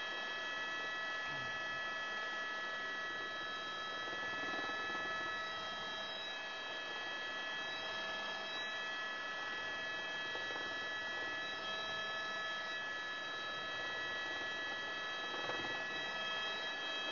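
Airbus H125 (AS350B3e) helicopter running in a hover taxi, heard from inside the cockpit: a steady whine of several high tones over an even rushing noise, with a couple of the tones fading out partway through.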